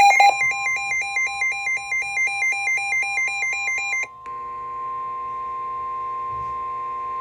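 Emergency alert tones: a rapid, alternating two-pitch electronic warble for about four seconds, with a steady attention tone beneath it that carries on alone once the warble stops.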